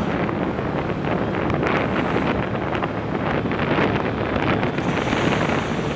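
Heavy, steady wind noise buffeting a wired earphone mic inside a motorcycle helmet while riding, with the bike and traffic faintly beneath it.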